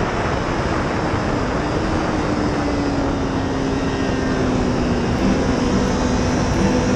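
Honda CBR1000RR superbike's inline-four engine at track speed, largely buried under steady wind rush on the onboard camera; the engine note sinks slowly through the middle and a higher note comes in near the end.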